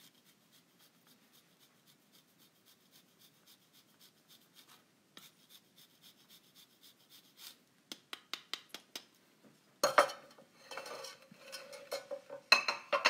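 Hard pecorino cheese being grated on a long-handled rasp grater: quiet, short scraping strokes, about two or three a second, coming faster after about five seconds. About ten seconds in and again near the end come louder clinks with a brief ringing tone.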